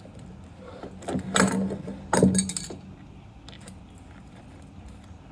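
Tape being pulled off a roll to wrap wires together: a few short, ratchety pulls between about one and two and a half seconds in.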